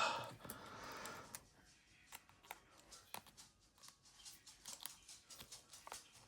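Faint, scattered small clicks and scrapes of a pick working inside a handcuff lock, with the double lock already released. A soft hiss fades out in the first second and a half.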